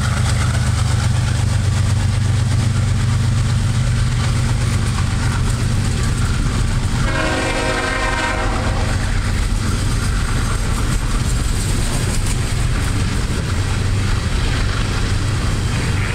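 Empty coal hopper cars rolling past with a steady rail clatter, while the diesel locomotive rumble ahead of them fades over the first few seconds. A train horn sounds for about two seconds near the middle.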